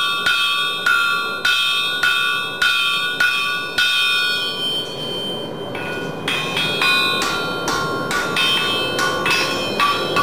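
Hammer blows on a steel anvil as a red-hot iron horseshoe is shaped, each strike ringing on. The blows come steadily a little under two a second, break off briefly about five seconds in, then resume quicker and lighter.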